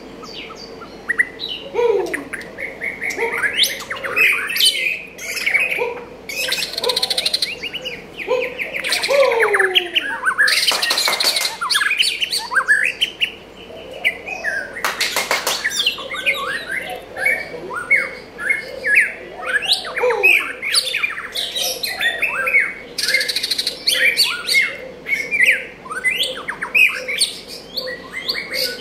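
White-rumped shama singing a long, varied song of rich whistled phrases, the notes sliding up and down in pitch, broken by a few short noisy bursts.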